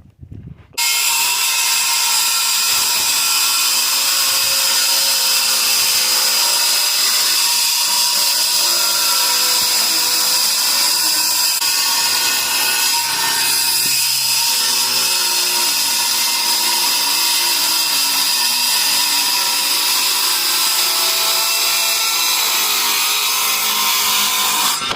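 Circular saw with a wood blade running steadily through a board in one long cut. It starts suddenly just under a second in and cuts off abruptly near the end.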